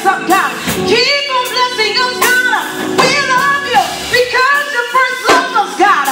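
A woman singing solo into a handheld microphone, her voice amplified. The melody keeps sliding up and down in pitch in long runs.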